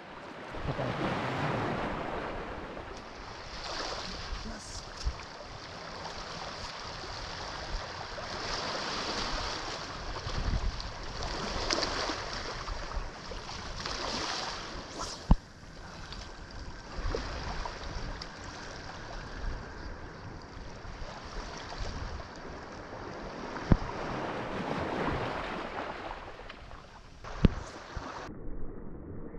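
Sea waves washing against shore rocks, swelling and falling back every few seconds, with wind buffeting the microphone. Three sharp knocks sound in the second half.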